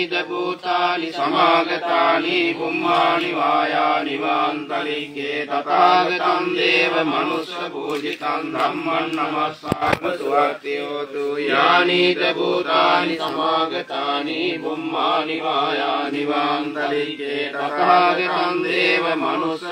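A group of Buddhist monks chanting pirith together, a steady drone of several male voices that goes on without a break. There is a brief dip and a knock just before ten seconds in.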